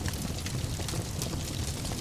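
Fire in a fireplace crackling, with many small sharp pops over a steady low rumble of flames.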